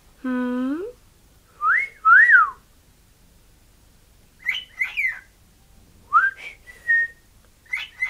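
Pet cockatiel whistling: two rising-and-falling notes, then bursts of chirps, another rising whistle and a short held note, parts of tunes it was taught. A person's voice sounds briefly at the start.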